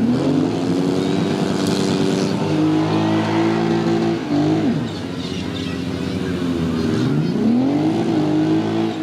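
Demolition derby car engines revving hard, the pitch climbing at the start, held high, dropping about halfway, then climbing again near the end.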